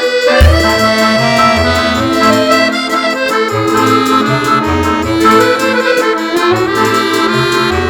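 Background music led by an accordion, with a bass line coming in about half a second in.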